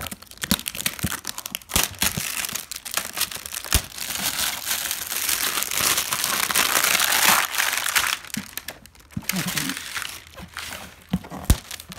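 Plastic shrink-wrap being pulled off a sealed cardboard box and crumpled by hand: continuous crinkling and crackling with sharp clicks, busiest and loudest from about four to eight seconds in.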